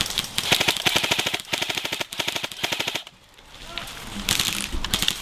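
Airsoft rifles firing on full auto as suppressing fire: one rapid burst of about three seconds, a short break, then more short bursts near the end.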